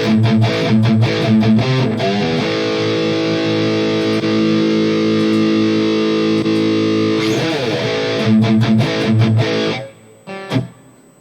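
Distorted electric guitar played through a digital modeling unit's amp simulation, with the power-amp tube emulation switched off. Short chugged chord strokes lead into one chord left ringing for about five seconds, then more chugging that stops abruptly near the end, followed by a single click.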